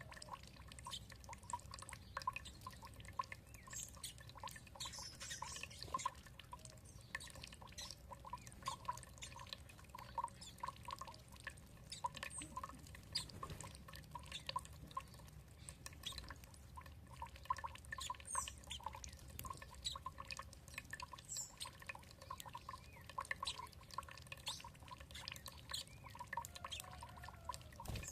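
Water trickling and dripping in many small, quick drops over a low steady flow, with a few short high bird chirps now and then.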